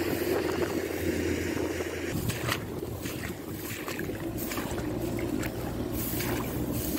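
Combine harvester's engine running steadily, a low mechanical drone.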